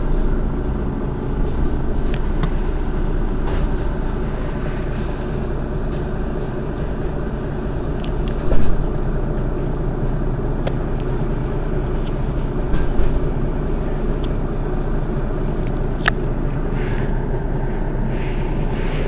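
Mercedes-Benz Citaro city bus's rear-mounted engine idling steadily with the bus standing still. A loud thump comes about halfway through, and a sharp click later on.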